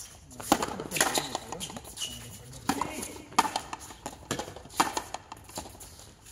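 Frontenis ball play: the hard rubber ball struck by strung rackets and smacking off the fronton's front wall, about seven sharp smacks, several coming in quick pairs.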